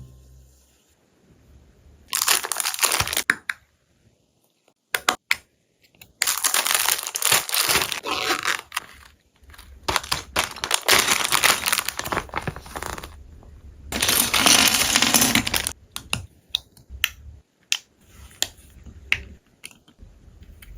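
Packaging crinkled by hand in four long bursts, with scattered light taps and clicks between them.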